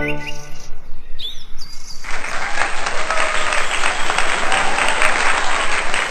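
Applause, a dense crowd of hand claps that starts suddenly about two seconds in and keeps going, after a couple of short chirps.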